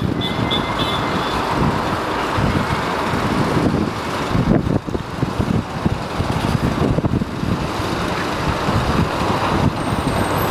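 Diesel engines of a skid-steer loader and a wheel loader running steadily while they move soil, with scattered knocks.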